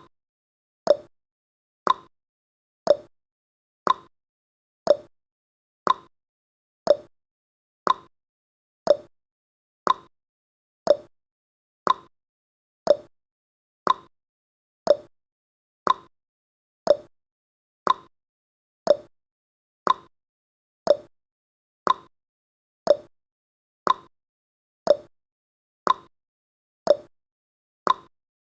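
Countdown timer's tick sound effect: one short, sharp click every second, evenly paced and with silence between.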